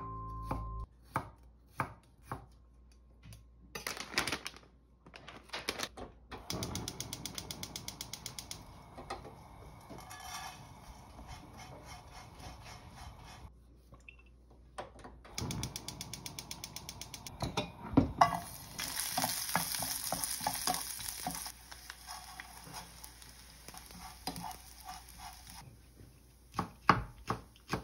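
Kitchen sounds as a stir-fry of small dried anchovies is made: a knife chopping garlic on a wooden cutting board with sharp clicks, then fast, even rattling of the dried anchovies being tossed and stirred in a frying pan. About two-thirds of the way through there is a stretch of high sizzling, and near the end the knife chops again on the board.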